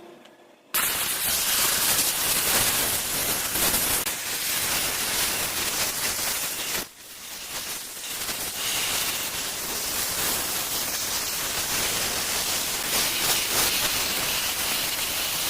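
Electric welding arc running with a steady hiss, struck abruptly under a second in, broken off briefly about halfway through, then restruck and running on.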